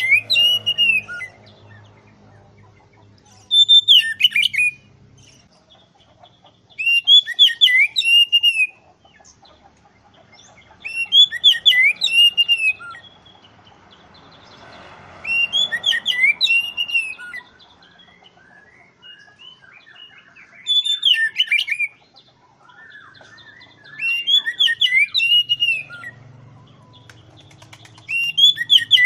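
Oriental magpie-robin (kacer) singing: loud whistled phrases of arching notes, each a second or two long, repeated every few seconds.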